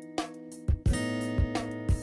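Background music played on a plucked guitar: single notes struck about every half second, each ringing on into the next.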